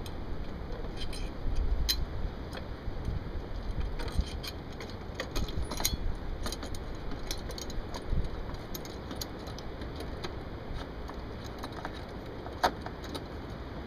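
Small metal clinks and rattles as bolts and mounting hardware are handled and threaded in by hand, with a low rumble of wind on the microphone.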